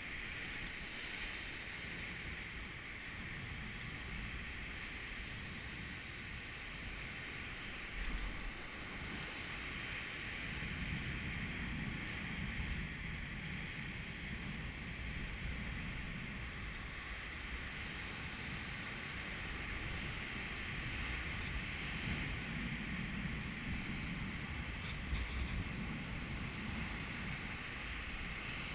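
Sea surf breaking and washing over coastal rocks: a steady wash with slow surges as the waves roll in, and a couple of brief low bumps.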